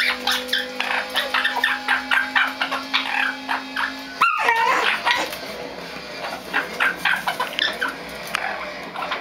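Bull terrier whining and yipping in short, quick bursts, with one louder cry about four seconds in.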